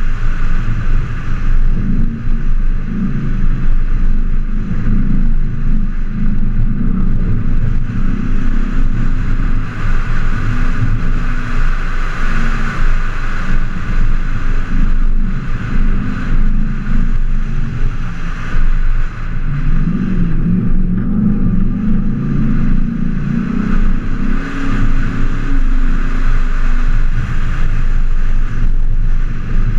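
A 4x4's engine running under load as it drives on a sandy dirt track, heard from a camera mounted on the hood, with wind noise on the microphone. The engine note shifts constantly and picks up revs about twenty seconds in.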